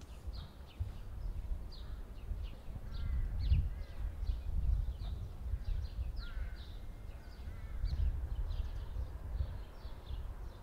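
Small songbirds chirping, with many short high chirps in quick succession, over a fluctuating low rumble.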